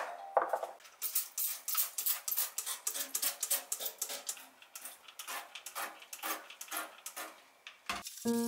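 Trigger spray bottle of cleaner squeezed over and over into a stainless steel sink, a short hiss of spray several times a second. It opens with the snap of a plastic egg case lid closing, and music comes in near the end.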